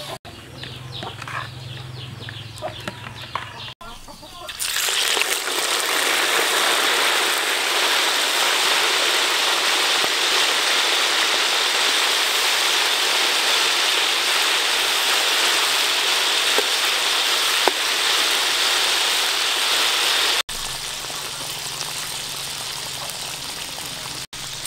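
Whole frogs deep-frying in a wok of hot oil: a loud, even sizzle that starts about five seconds in and cuts off abruptly near twenty seconds. After it comes a quieter sizzle of frogs cooking with spring onions in sauce in the wok.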